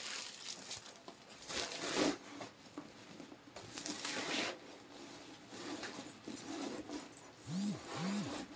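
Rustling and handling of a fabric tote bag as it is turned over and searched inside, with louder rustles about two seconds in and again about four seconds in. Near the end come two short, low hums.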